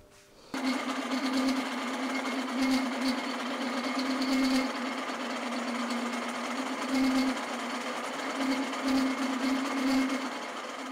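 Vertical milling machine running, its end mill cutting into welded-on aluminium: a steady motor hum under a rough cutting noise, starting about half a second in.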